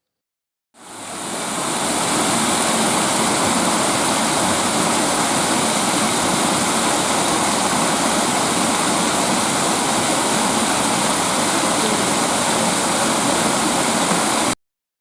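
Garden waterfall splashing in a steady rush of water, fading in at the start and cutting off suddenly near the end.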